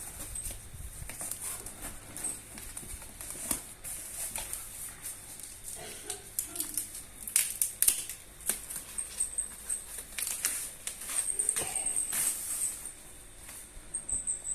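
Packaging being handled during an unboxing: irregular clicks, crackles and rustles of cardboard and plastic being opened and moved about. Faint high chirping recurs several times.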